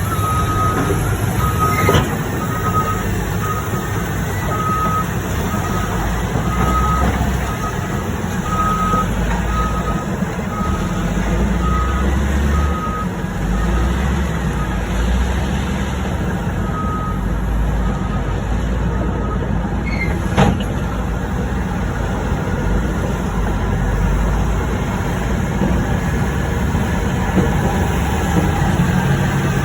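Heavy diesel machinery running with a steady low rumble. Its reversing alarm beeps about one and a half times a second for roughly the first half, then once more a few seconds later. A couple of short knocks come in.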